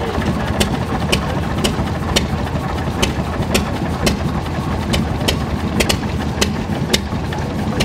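Old stationary engine running slowly, a sharp click about twice a second over a steady low running noise.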